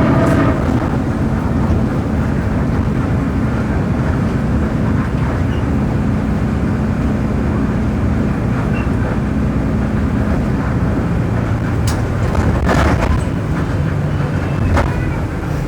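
Volksbus 17.230 OD bus running steadily with its MAN D0834 four-cylinder diesel, the drive carrying the growl of the differential. A few sharp knocks come near the end.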